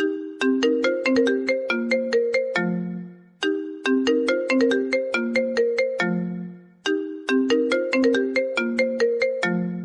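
iPhone ringtone playing: a short melody of quick struck notes that ends on a low held note. The phrase loops about every three and a half seconds, three times, with a brief dip between repeats.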